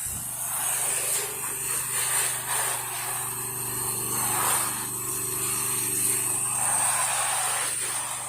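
Gas-engine pressure washer, a Kohler Command Pro engine, running steadily, with the hiss of the wand spraying house-wash solution onto the siding.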